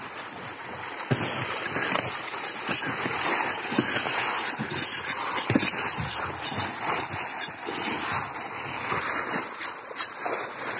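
A dense shoal of pangas catfish (pangasius) splashing and thrashing at the water's surface in a feeding frenzy as feed is thrown in. It sounds as continuous churning water broken by many quick, sharp splashes.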